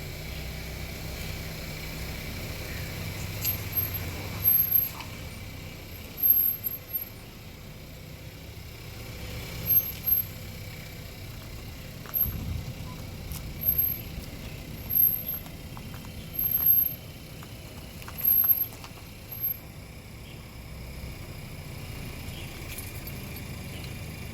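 Rear of an Audi A3 squeaking: about a dozen short, very high-pitched squeaks come irregularly from about four seconds in until about twenty seconds in, over the car's steady low rumble.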